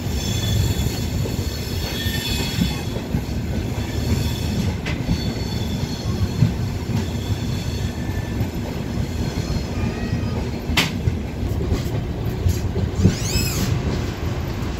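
Passenger train coaches rolling slowly into a station: a steady rumble of wheels on rail, with high-pitched wheel squeal. There is a sharp clack about eleven seconds in, and a squeal that rises and falls near the end.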